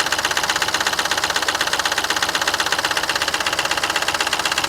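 Mahindra TUV300's three-cylinder diesel engine idling with a fast, even clatter. It is a mechanical fault noise that the mechanic has ruled out as coming from the injectors or the replaced high-pressure pump, and places lower down on the engine.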